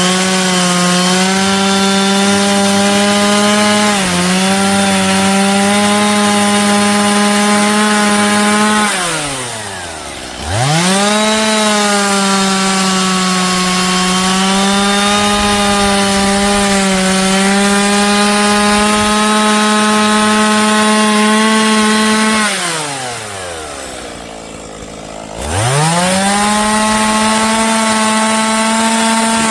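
Gas chainsaw running at full throttle, cutting wood. Twice the throttle is released and the engine winds down to idle, then it revs straight back up and keeps running at a steady high pitch.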